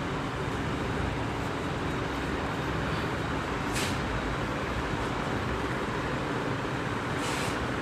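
Steady road traffic noise with a low rumble, and two short high hisses, about four seconds in and near the end.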